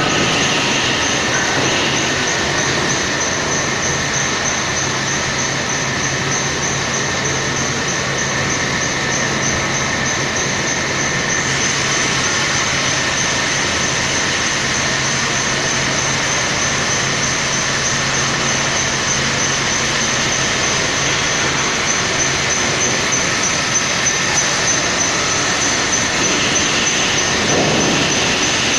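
Hydraulic 350-ton double-head horizontal wheelset press running: a steady mechanical hum under a thin high-pitched whine, which grows a little brighter about a third of the way through.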